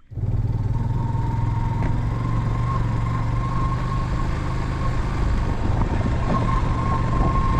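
Motor vehicle engine running steadily while on the move, a low hum with a thin high whine over it.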